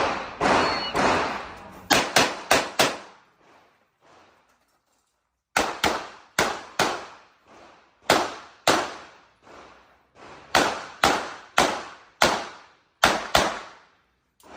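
Handgun shots fired in a string during an IPSC practical shooting stage. A few come in quick succession, then after a pause of about three seconds the rest follow, many as fast pairs, each with a short echoing tail.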